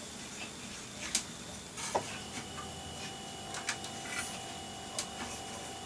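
Quiet handling of a RAM module and the open desktop computer case: a few light clicks and taps, about one and two seconds in and fainter ones later. A faint steady tone starts about two seconds in and holds.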